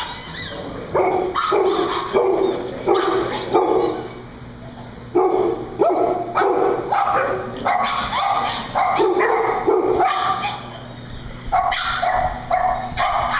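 Dogs barking over and over in short, sharp barks, with some higher yips mixed in, in excited group play among a pack of dogs.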